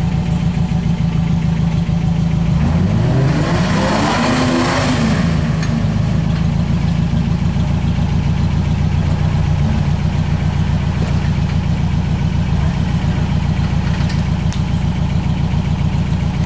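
Off-road vehicle engine idling steadily, with one brief rev that rises and falls about three seconds in, together with a short rush of noise.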